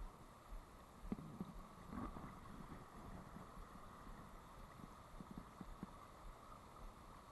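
Faint, steady rush of stream water running over a riffle, with scattered soft knocks and clicks, most of them about a second to two seconds in and again past five seconds.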